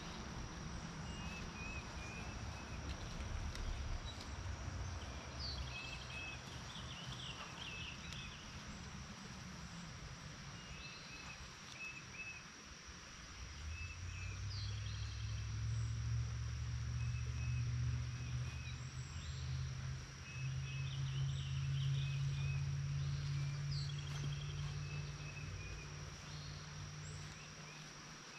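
Rural outdoor ambience: insects keep up a steady high buzz while birds chirp in short repeated phrases. From about halfway, a low steady hum comes up and is the loudest sound, easing off near the end.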